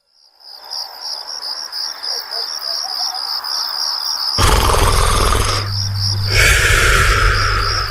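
Cartoon snoring sound effect: two long, loud snores, the first about four seconds in, over crickets chirping steadily at about five chirps a second.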